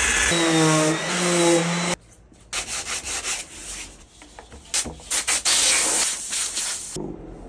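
Sandpaper rubbing by hand over the resin of a surfboard fin-box repair, in irregular scratchy strokes. For about the first two seconds a loud pitched hum with shifting pitch sounds, then cuts off suddenly.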